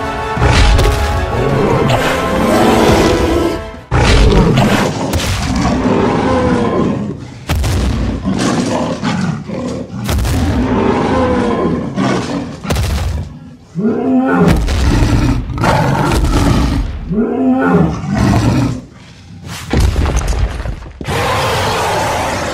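Dinosaur roar sound effects and booming hits over background music, with arching roar calls twice in the middle.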